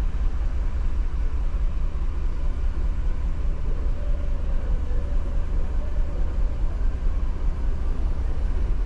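2015 GMC Yukon's 6.2-litre V8 idling as a steady low rumble while misfiring on cylinder 3 (code P0303).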